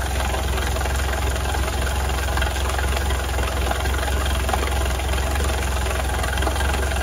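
Outboard motor running at a steady idle out of the water while being flushed with fresh water from a hose, with the exhaust water spraying and splashing out of the propeller hub.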